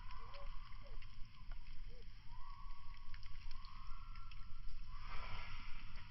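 Firewood burning hard in a fire pit at full heat: a steady low rumble with scattered crackles and pops.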